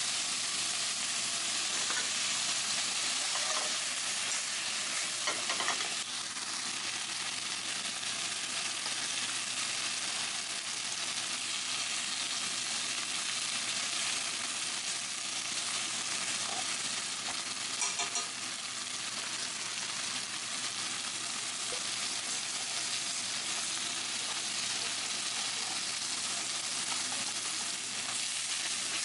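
Food frying in a pan: a steady sizzling hiss.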